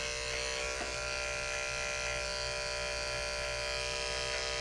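Corded electric dog-grooming clippers running steadily while trimming the fur on a dog's back paw pad.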